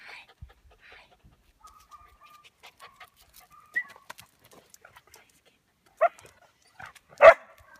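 A dog whining in thin, high tones, then two short, loud yips about six and seven seconds in, the second the louder.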